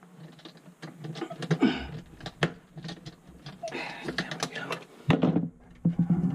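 Irregular clicks, knocks and scraping of hands handling a garbage disposal at its sink mounting ring, with a sharper knock about five seconds in.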